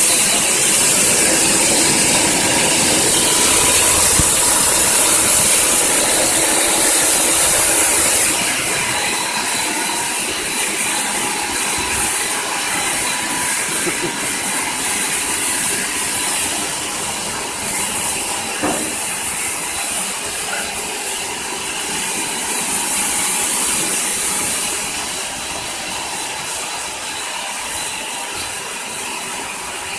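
Crispy rice ball making machine running with a steady mechanical noise and a loud hiss. The hiss lasts about the first eight seconds, drops away, then returns for several seconds past the middle.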